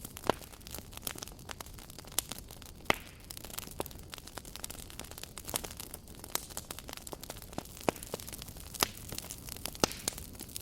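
Campfire burning: wood crackling and popping in irregular sharp snaps over a low, steady hiss of flame.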